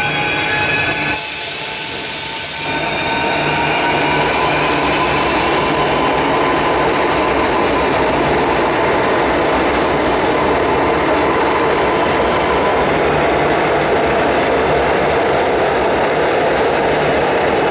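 Renfe Civia electric commuter train pulling out of an underground station. The motor whine rises in pitch over the first few seconds, with a loud hiss of air lasting about a second and a half shortly after the start. Then comes the steady rumble of the cars running past on the rails.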